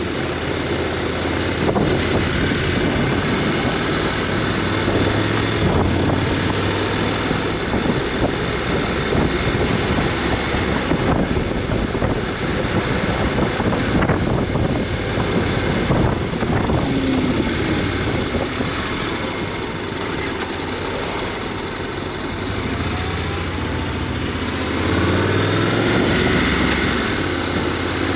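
Honda NC750X's parallel-twin engine running while being ridden, with wind rushing over the microphone. The engine note steps up in level near the end.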